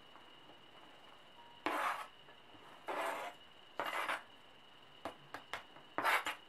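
Sliced bell pepper strips being scraped off a plastic cutting board into a glass bowl: four short scraping strokes, with a few light clicks between the last two.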